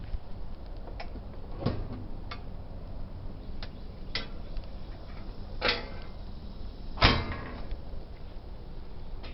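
Scattered clicks and knocks of a top-load washer's lid-lock parts and cabinet being handled while the lock's wire is routed and clamped, about seven in all, with one louder knock about two-thirds of the way through.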